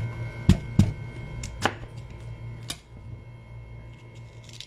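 Knife cutting through a crisp, unripe green mango, about six sharp cuts in the first three seconds, then quieter, over a steady low hum.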